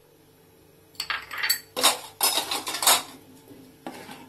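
A flat wooden spatula stirring and tossing chunks of cut vegetables in a non-stick kadai: a clink about a second in, then a run of scraping and clattering against the pan that dies down near the end.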